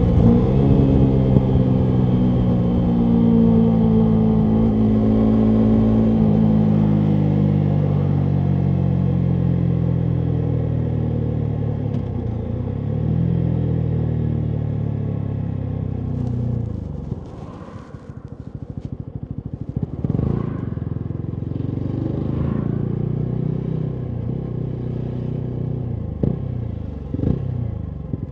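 Yamaha MT125's single-cylinder four-stroke engine through a full Akrapovic exhaust, revs falling steadily as the bike slows on engine braking, with one brief rise in pitch near halfway. About seventeen seconds in it drops to low revs and the exhaust pops and crackles on the overrun.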